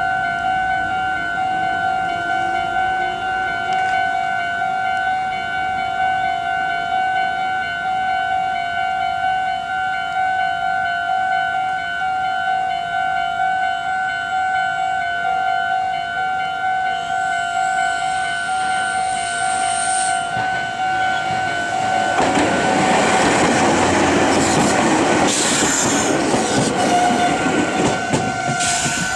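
Japanese level-crossing alarm on the Meitetsu Nagoya Main Line ringing in a steady repeating beat. About 22 seconds in, a Meitetsu electric train passes over the crossing, its wheels and carriages adding a loud rush for several seconds.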